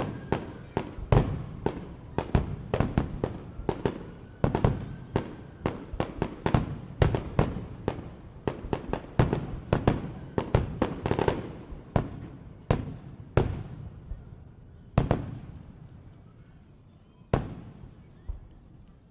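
Aerial fireworks display: rapid volleys of shell bursts, many bangs a second, thinning out after about twelve seconds to a few single bangs spaced well apart.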